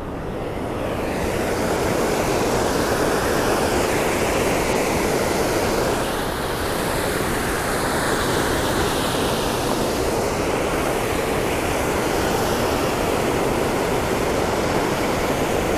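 Steady rushing of river water pouring over a low-head dam's concrete spillway; it swells over the first couple of seconds and then holds even.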